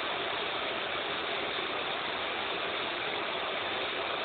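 CNC lathe running in a machine shop: a steady, even mechanical noise with no separate knocks or changes.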